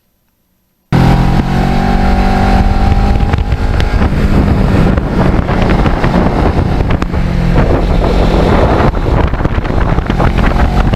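Kawasaki Ninja 650R's parallel-twin engine running at speed, heavily buffeted by wind noise on the microphone. It cuts in abruptly about a second in, and the engine note rises slightly near the end.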